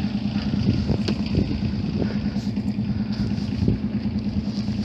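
A sailboat's auxiliary engine idling, a steady low hum with a fast even pulse.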